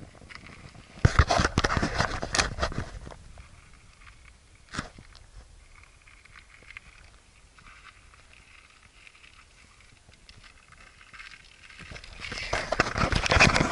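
Footsteps and shuffling on coarse gravel, crunching in two bouts: one about a second in, and a louder one near the end. A single click falls between them, with a quiet stretch after it.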